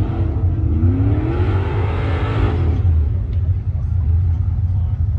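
Four-wheel-drive engine revving over a steady deep engine rumble: a short rev at the start, then a longer one that climbs for about a second and a half and drops back, with a rush of noise at its peak.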